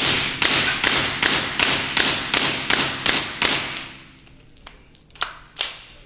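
Suppressed Calico M100 .22 LR carbine with a SilencerCo Sparrow suppressor firing about ten shots in quick succession, roughly two to three a second, each a sharp crack ringing off the concrete range. After that come a few quieter, sharper clicks.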